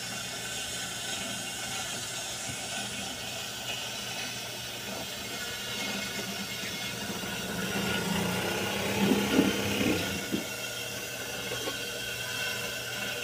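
Old industrial sewing machine running with a steady motor hum and hiss, louder for a couple of seconds past the middle.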